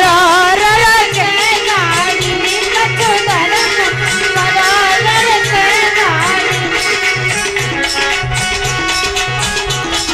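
Devotional folk music: a harmonium playing held and moving notes with a steady dholak beat, and a woman's voice singing a long, gliding, wordless line over the first six seconds or so.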